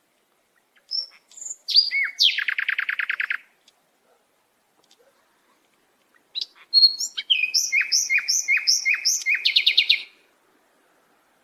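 A songbird singing two phrases. The first, about a second in, is a few short notes that break into a fast trill. The second, starting about six seconds in, is a run of quick downslurred notes that ends in another fast trill.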